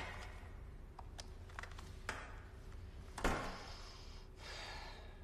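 Corded desk telephone being handled: a few light clicks about a second in, then a louder clack and rustle about three seconds in as the handset is raised to the ear.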